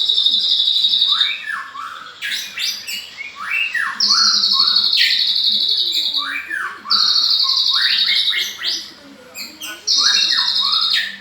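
White-rumped shama (murai batu) singing loudly: long, fast high trills that come about every three seconds, each lasting a second or two, with short whistled notes sliding up and down between them.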